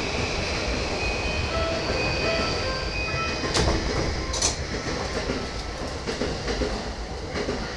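E235 series Yamanote Line train heard from inside a passenger car: steady running rumble with short whining tones from the traction inverters stepping in and out as it pulls away. Two sharp clacks of the wheels over rail joints or points come about three and a half and four and a half seconds in.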